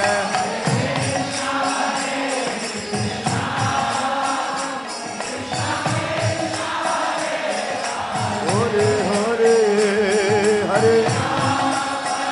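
Devotional Hindu chant music: singing over a steady, jingling percussion beat. About two-thirds in, a single voice holds a long wavering note.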